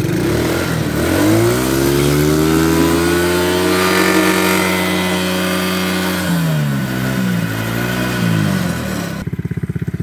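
Small ATV engine revving up from a pulsing idle, held at high revs for several seconds, then falling back with a few wavers to idle about nine seconds in. The revving comes as the quad's summer tyres spin and slide on snow.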